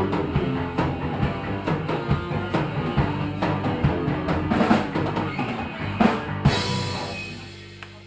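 Live rock band of drum kit and electric guitars playing the closing bars of a song. About six and a half seconds in it ends on one big final hit, and the ring of the cymbals and guitars fades away.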